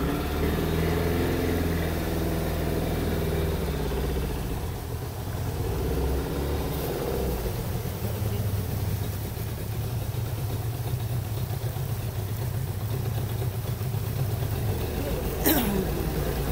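Outboard motor of a motorized canoe running steadily at low speed, a continuous low drone. Near the end a brief, sharp falling sound cuts across it.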